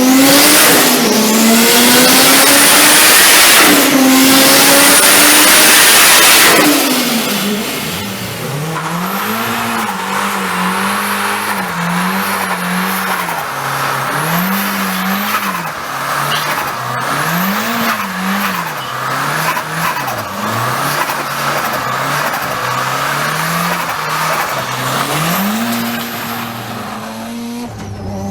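Turbocharged car engine revving hard under a loud rushing hiss for about the first six seconds. After that it is blipped up and down again and again, with high turbo whistles and chirps as each rev drops.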